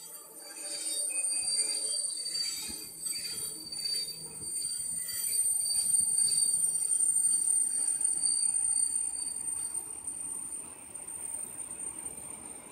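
Freight train of container flat wagons carrying tank containers rolling past, the wheels squealing with a steady high whistle over the rumble of the wagons, with some knocks in the first few seconds.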